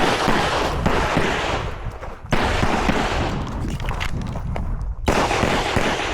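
Pistol shots, several at uneven spacing, each followed by a long echoing decay.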